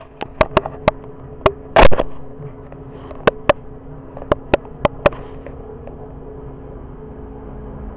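A run of sharp clicks, about a dozen spread over the first five seconds, with one louder, longer rustling knock a little under two seconds in, over a steady low hum.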